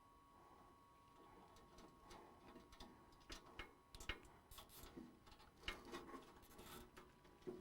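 Faint clicks and rustling of hands handling cables and parts inside a desktop PC case, a scatter of small irregular ticks that starts about two seconds in.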